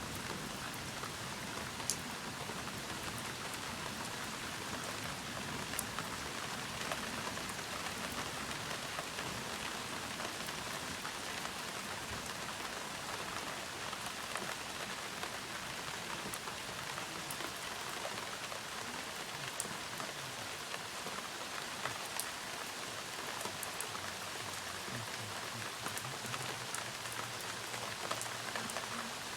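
Steady heavy rain during a thunderstorm, with scattered sharper ticks of single drops striking close by.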